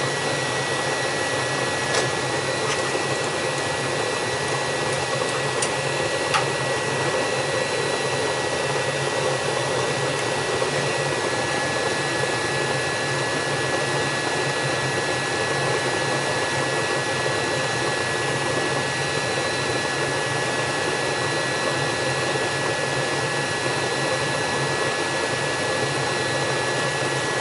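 Gas furnace running, fired: a steady rushing of its fans and burners with a thin steady high whine over it, and a couple of light clicks.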